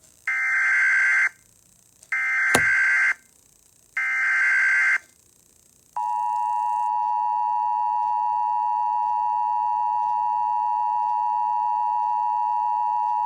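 Emergency Alert System tones: three harsh, buzzy one-second SAME data bursts about two seconds apart, with a click during the second, then the steady two-tone EAS attention signal starting about six seconds in. Together they announce a National Weather Service severe thunderstorm warning.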